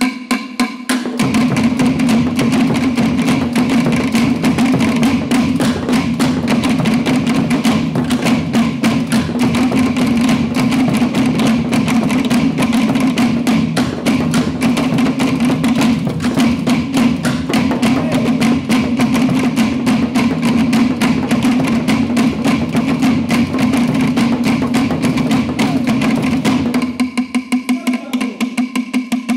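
Tahitian drum ensemble playing a fast, dense rhythm: wooden to'ere slit drums struck with sticks over deeper drums. The deep drums come in about a second in and drop out near the end, leaving the slit drums' rapid wooden strokes.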